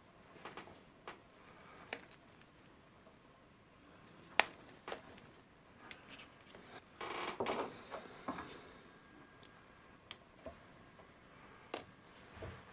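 Scattered sharp metallic clicks and light taps as a small aluminium tool and a bench vise are handled while fitting rubber slingshot tubing, with a longer rubbing, rustling noise about seven to eight seconds in.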